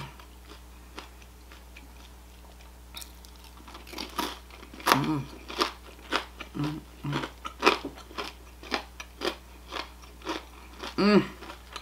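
Crunchy breaded, oven-fried shrimp being bitten and chewed. Sharp crunches come several times a second, starting about three seconds in, with short hums of enjoyment between them.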